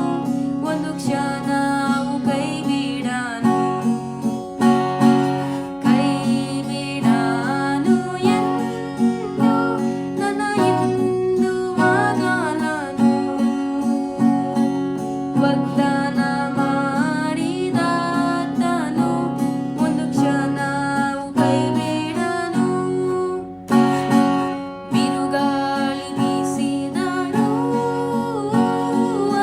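A woman singing a Kannada gospel song over strummed acoustic guitar.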